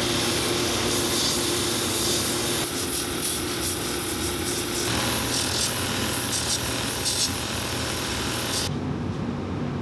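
Shoe-finishing machine's sanding wheel grinding down a built-up wedge heel on a leather dress shoe, a steady abrasive rasp over the machine's running hum. Near the end the grinding drops away, leaving a lower running noise.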